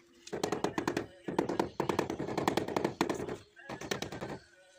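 Rubber mallet tapping rapidly on a large ceramic floor tile to bed it into the tile adhesive, in four quick runs of blows with short pauses between them.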